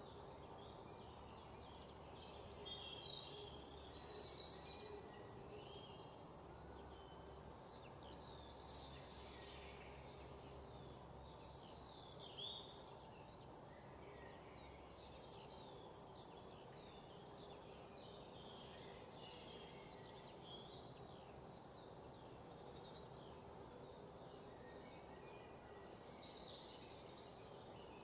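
Small birds chirping with short, high calls throughout, with a louder, rapid pulsing trill from about two to five seconds in.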